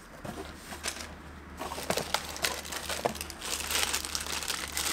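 Thin plastic packaging bags crinkling and rustling in the hands as a camera battery and a bagged accessory are handled and pulled from the box: irregular crackles, busier from about two seconds in.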